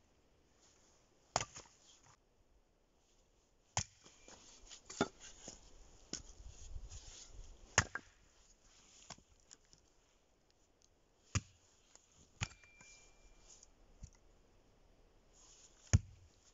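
Axe blows chopping thick firewood into pieces small enough for a stove: about ten sharp knocks at irregular spacing, the loudest near the end.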